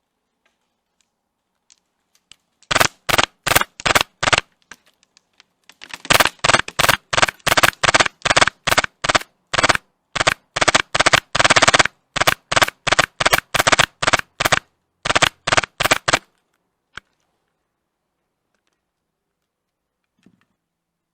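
Airsoft gun firing in rapid, evenly spaced shots, about three a second: a short string of about five, then after a brief pause a long string lasting about ten seconds.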